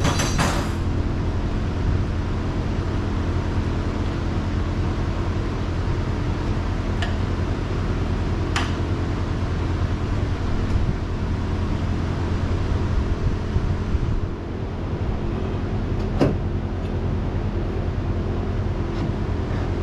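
A steady low hum of running machinery, with three short sharp clicks of hand tools, the loudest about 16 seconds in.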